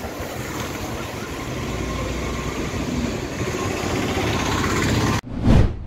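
A steady rushing noise that grows slightly louder, cut off abruptly near the end and followed by a short swelling whoosh.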